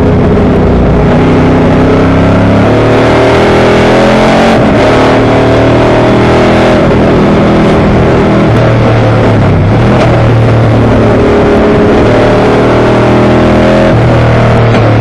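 Vintage Dodge Challenger race car's Hemi V8 at racing speed, heard from inside the cockpit. It runs loud throughout, and its pitch steps up and down several times with the revs and gear changes.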